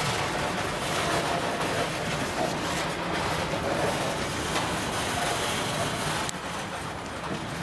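Freight train of open gondola wagons and a covered hopper wagon rolling past, its wheels running on the rails with a steady, even rumble.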